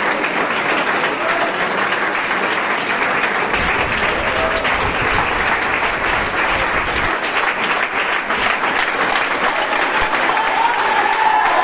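A crowd clapping steadily and continuously, a dense patter of many hands.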